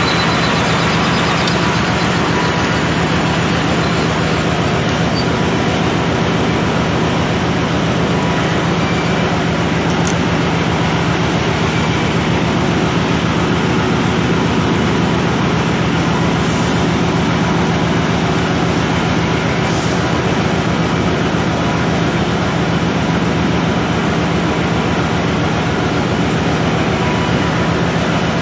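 Metal lathe running with a steady, unchanging mechanical hum from its motor and gearing while it turns a shaft.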